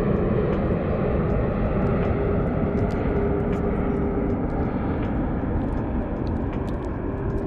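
Jet airliner flying low overhead: a steady engine rumble with a held hum that slowly fades.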